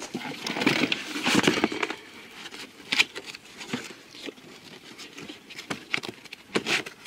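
Cardboard boxes being rummaged through by hand: flaps and box sides rustling and scraping, loudest in the first two seconds, then scattered sharp taps and knocks.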